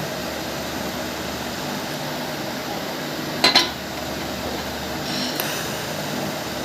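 TIG400A TIG welding machine running during a test weld with its new torch, giving a steady hum and hiss, with a short sharp double crackle about three and a half seconds in.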